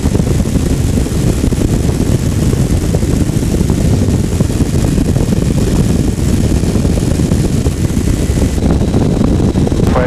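Heavy wind rumble buffeting the microphone of a light aircraft in flight, with the aircraft's engine running underneath. A steady hiss above the rumble stops near the end.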